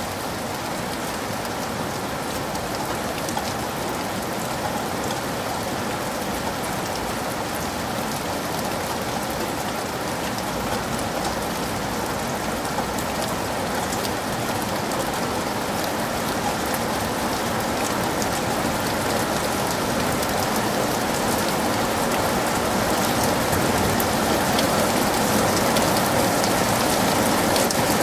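Heavy rain falling steadily, with many individual drops ticking close by, slowly growing louder.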